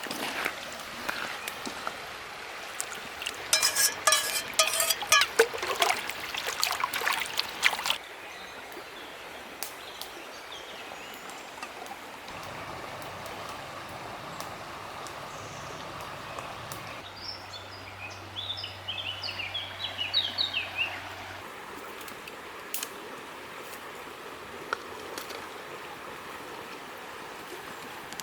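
Outdoor ambience with a steady rush like a stream, and a bird chirping several times about two-thirds of the way through. Between about three and eight seconds in, a stretch of loud clicking and crackling, which cuts off suddenly.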